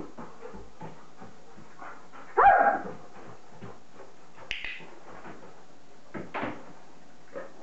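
A German Shepherd's paws tapping and shifting on a wooden training platform, with one short, loud, high-pitched whine about two and a half seconds in. A sharp click comes about four and a half seconds in.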